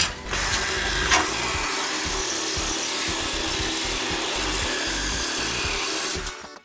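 Reciprocating saw cutting through a rusted steel frame rail, a steady run that stops abruptly near the end.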